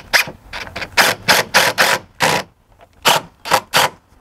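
Cordless DeWalt impact driver driving screws through a railing bracket, run in about ten short spurts of rapid hammering with a brief pause near the middle, as the screws are seated tight.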